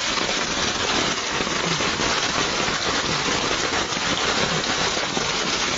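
Heavy rain falling steadily onto floodwater, a dense, even hiss of drops striking the water's surface.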